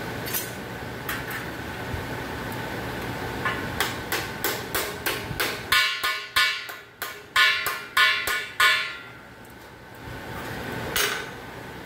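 Sheet steel being struck in a run of about a dozen sharp metal-on-metal blows, two or three a second, each ringing briefly, with a steady shop hum underneath.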